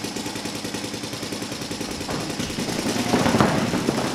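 Paintball markers firing in a rapid, unbroken stream of shots, growing louder near the end.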